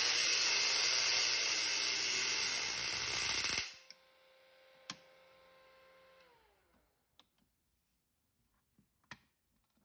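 Homemade spark gap Tesla coil running: a loud, steady hissing buzz from the spark gap and the arcs that cuts off abruptly a few seconds in as the coil is powered down. Afterwards a faint hum falls in pitch and dies away, with one sharp click and a few small clicks from handling the control box.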